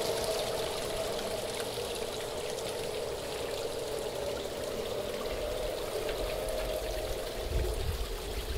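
Water from a small pump-fed garden pond waterfall splashing and trickling steadily into the pond. A low rumble joins in during the second half.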